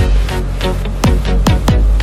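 Background electronic dance music with a heavy bass and a steady kick drum beat.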